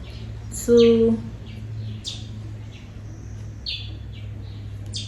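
Birds chirping in the background: a steady series of short, high chirps, each falling in pitch, several a second, over a steady low hum.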